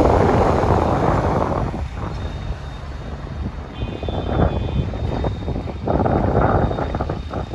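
Rumbling vehicle and road noise with wind buffeting the microphone, loudest in the first two seconds and again about six seconds in.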